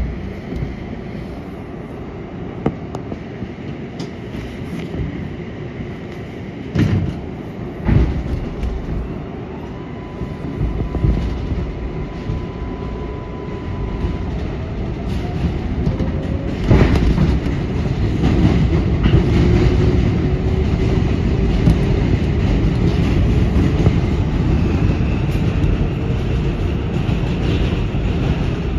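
R188 subway train running on elevated track, heard from inside the front cab: a steady rumble of wheels on rail with a few sharp knocks over joints, a faint whine rising in pitch, and the whole sound growing louder in the second half.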